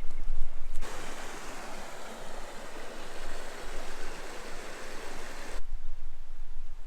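Rushing water, a steady even hiss that starts abruptly about a second in and cuts off suddenly about five and a half seconds in. Wind rumbles low on the microphone before and after it.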